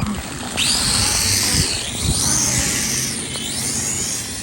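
Small drone's propellers and motors whirring, the high whine sweeping up and down in pitch as it manoeuvres; it starts about half a second in and cuts off near the end.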